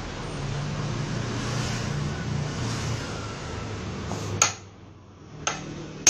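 A small motor-driven power tool running steadily with a low hum for about four seconds, then stopping abruptly. Several sharp metallic clicks follow near the end.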